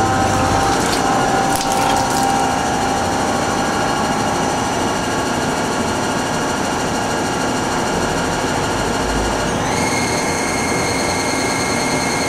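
Hardinge Conquest T42SP CNC lathe running under power: a steady, many-toned mechanical whine with a few sharp clicks in the first two seconds. About ten seconds in the whine glides upward and settles at a higher pitch, as the spindle drive speeds up.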